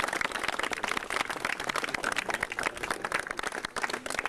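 Applause from a small crowd, many quick overlapping hand claps.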